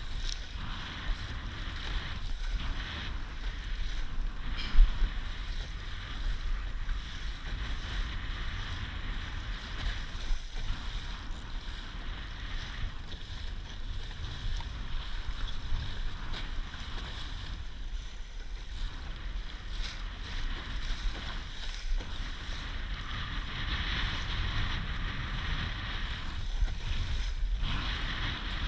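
Laser dinghy planing through choppy water in strong wind: a steady rush and hiss of water and spray along the hull, with wind buffeting the microphone. A single sharp thump about five seconds in is the loudest moment.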